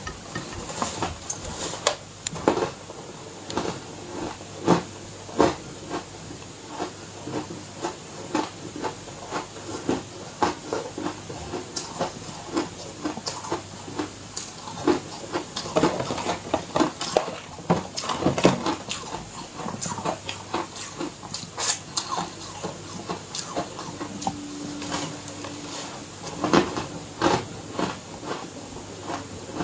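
Close-miked ice being bitten and chewed: a continuous, irregular run of sharp crunches and cracks over a light hiss.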